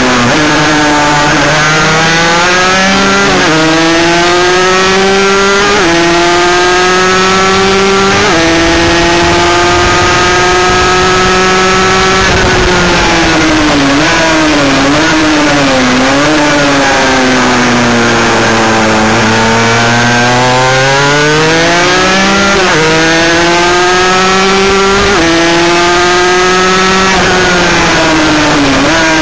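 Sport motorcycle engine at racing revs, heard from an onboard camera, with a steady rush of wind and road noise. The revs climb and drop sharply at upshifts three times in the first eight seconds. Around the middle they fall away under braking, with two quick downshift blips. Then they climb through the gears again, with three more upshifts near the end.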